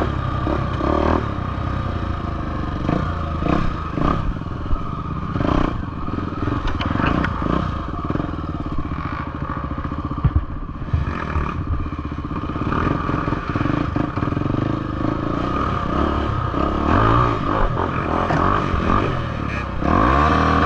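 Dirt bike engine running as the bike rides over a rough forest trail, with clatter and knocks from the bike bouncing over ruts. The engine revs up near the end.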